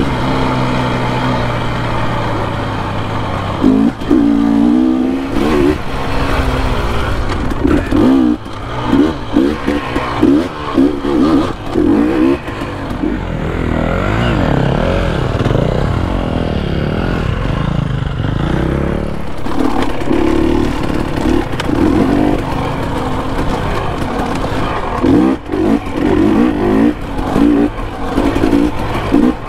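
Dirt bike engine revving up and down in repeated short bursts as it works through rocky singletrack, with rocks clattering under the tyres.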